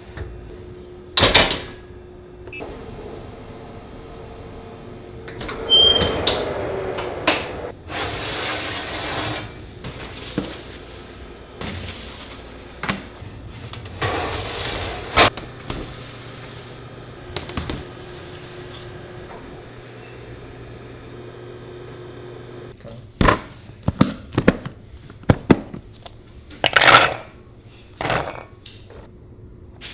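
Metal tart rings and baking trays clanking and scraping as pecan pies are loaded into a convection oven, with a short electronic beep from the oven's control panel about six seconds in and stretches of steady rushing noise. Near the end, a quick run of sharp clicks and rattles as pecan halves are handled in a stainless steel bowl.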